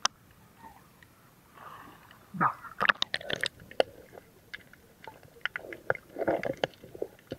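Scattered sharp clicks and knocks, several in quick succession about three seconds in and more spread through the rest, with a few faint short vocal sounds between them.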